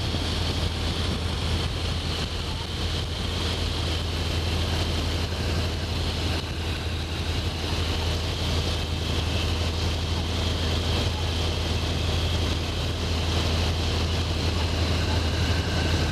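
New Standard open-cockpit biplane's radial engine droning steadily in cruise, with wind rushing past the open cockpit.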